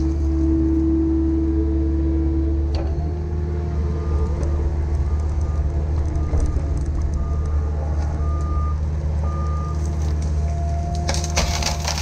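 CAT 305 mini excavator's diesel engine running steadily under hydraulic load, with a short high beep repeating roughly once a second through the middle. Near the end, wood cracks and splinters as brush and branches are broken.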